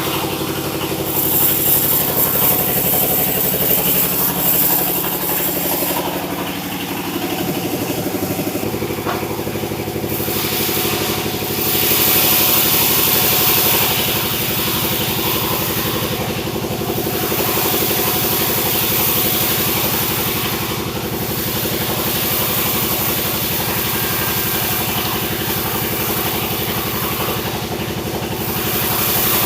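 Sawmill machinery running steadily: a loud engine drone whose pitch settles about eight seconds in, with a hiss above it that swells and fades several times.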